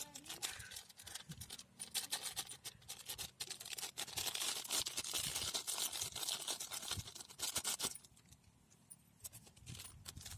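Foil spice packet crinkling and rustling as it is squeezed and shaken to empty the powder out, stopping about eight seconds in.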